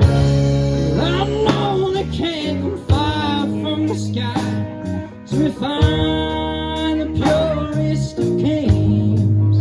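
A bluesy song played on guitar, with a singing voice whose pitch slides and bends over a steady low bass.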